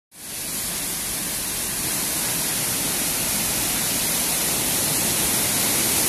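Steady rush of a waterfall and fast-flowing stream, a constant hiss that grows slowly louder.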